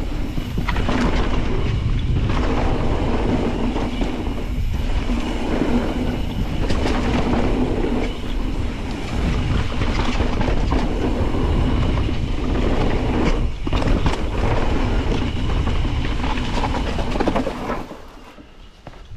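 Mountain bike descending a rough downhill trail, heard from a bike-mounted camera: tyres rolling over dirt and rock, with a constant clatter of chain and frame and frequent sharp knocks from bumps. The noise dies down suddenly near the end as the bike slows to a stop.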